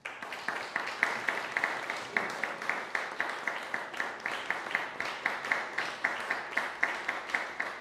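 A small audience applauding, starting suddenly, with a steady beat of louder claps standing out at about three a second.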